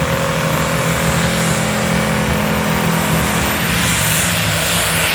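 International Harvester 1466 pro farm pulling tractor's diesel engine running loud and steady.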